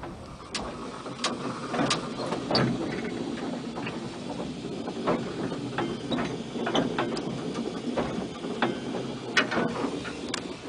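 Narrow-gauge steam locomotive Dolgoch running slowly, heard from its footplate: a steady running noise with irregular sharp clanks and clicks from the engine and its wheels on the track.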